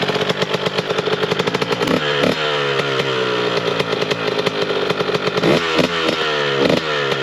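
Dirt bike engine running under load as it is ridden through mud, revving up and down with its pitch climbing and dropping back several times.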